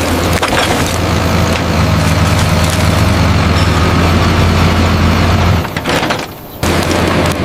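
Heavy machinery diesel engine running steadily at a low rumble, with a few light knocks; the engine sound drops out for about a second near the end, then resumes.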